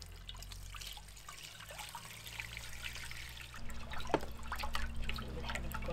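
Water poured from a metal pot into a large glazed earthenware bowl, trickling and splashing onto salt. A few seconds in, a hand swishes the water around the bowl to dissolve the salt, with splashes.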